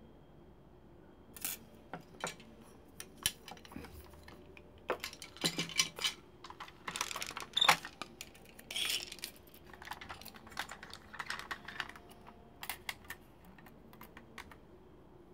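Hard plastic parts of a Transformers Powermaster Optimus Prime toy clicking and knocking as the trailer is handled, turned and set against a tape measure: a scatter of irregular clicks, loudest about halfway through.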